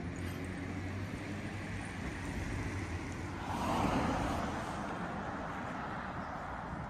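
Road traffic: a motor vehicle's steady low hum, with a rushing swell about halfway through that builds and fades over a second or two.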